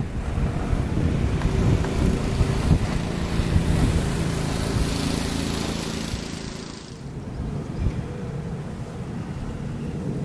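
Wind buffeting the microphone in irregular low gusts, with a steady hiss that drops away about seven seconds in.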